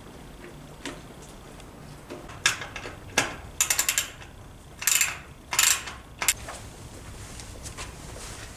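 Small hand tools working on brake-light parts: sharp clicks and short scraping rasps, with a quick run of clicks in the middle, bunched between about two and six seconds in.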